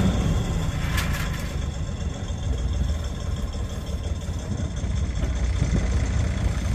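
Yacht's engine running steadily with a low rumble, working the boat backwards off a soft grounding where the keel stuck in mud and reeds. A short click about a second in.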